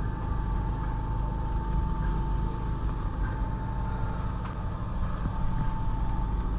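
An engine running steadily: a low, even drone with a constant thin whine on top.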